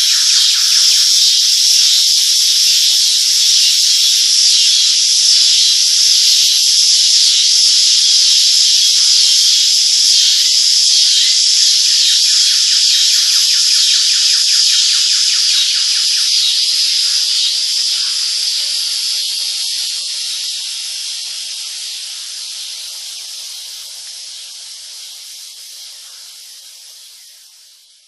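Loud, steady high-pitched hissing buzz with a fast fine pulse, fading out gradually over the last ten seconds.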